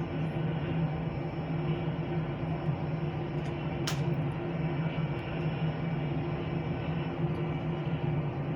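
Airbus A320 jet engines running steadily: a low hum with a few steady whining tones above it. A single sharp click about four seconds in.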